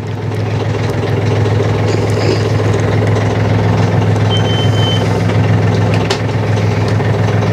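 Sailing yacht's inboard diesel engine idling steadily, with a brief high beep about four seconds in.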